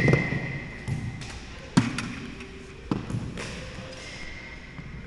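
Sharp knocks: a metallic ring from a hit fades out over the first second, then two single sharp knocks come about a second apart.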